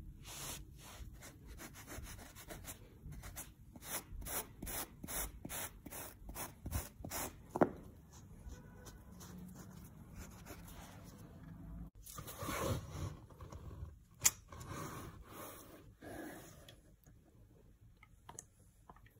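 Plastic scraper scraping chewing gum off carpet in short repeated strokes, about two or three a second, thinning out after about eight seconds. Two sharp clicks stand out, one about eight seconds in and one about fourteen seconds in.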